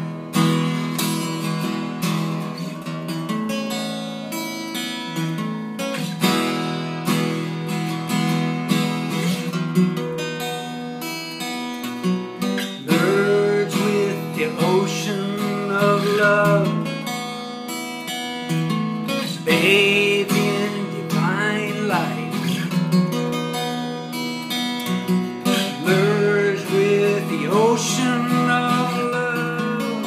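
Acoustic guitar strummed steadily as song accompaniment, with a man singing over it in phrases from a little under halfway through.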